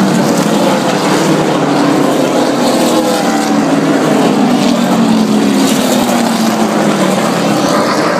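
NASCAR Sprint Cup stock cars' V8 engines at racing speed, passing one after another as a loud, continuous roar. Each car's engine note drops in pitch as it goes by.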